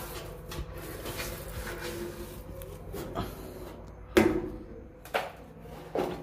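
A few scattered knocks and scrapes of handling inside a boat's engine compartment, the loudest about four seconds in, over a low steady background hum.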